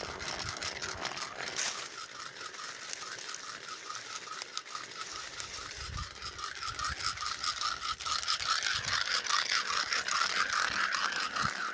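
Dry leaf litter crunching and rustling under footsteps, louder in the last few seconds, over a steady high pulsing drone that beats several times a second.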